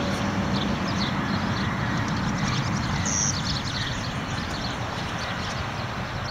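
Wind buffeting the microphone: a steady low rumble with an even hiss, without rising or falling.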